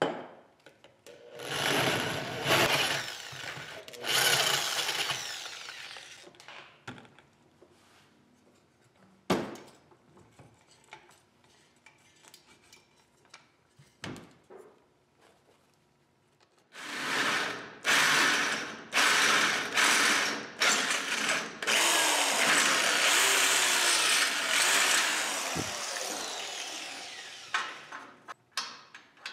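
Handheld Ryobi power drill running against a steel plate clamped in a bench vise, in two long spells with several quick starts and stops. Between the spells it is much quieter, with scattered clicks and knocks as the plate and clamp are handled.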